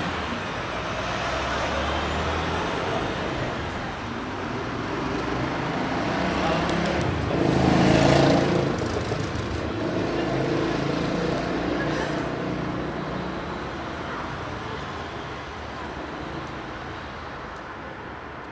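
City street traffic, with a vehicle passing close about eight seconds in, over indistinct voices of people nearby.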